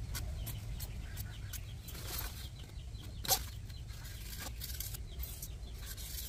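Foam being trimmed with a blade: a run of short, irregular cutting and scraping strokes, one louder snap about three seconds in, over a steady low rumble.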